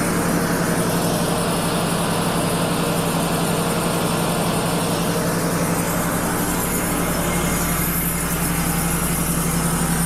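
Wood-Mizer LT35 sawmill's engine running steadily, a constant even hum with no change in speed.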